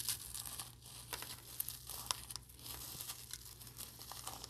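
A freeze-dried oyster being crushed to powder between gloved fingers: faint, soft crumbling with scattered tiny crackles. It breaks up very quietly.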